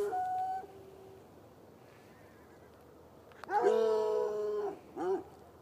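Hound barking: the dying end of one bark at the start, then after a pause a long drawn-out bay a little over three seconds in, followed by one short bark.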